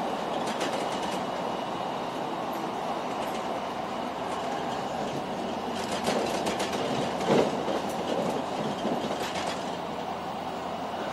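Limited express Sonic electric train running, heard from inside the passenger cabin: a steady rumble of wheels on rail, with several clusters of clatter as the wheels cross track joints, the loudest about seven seconds in.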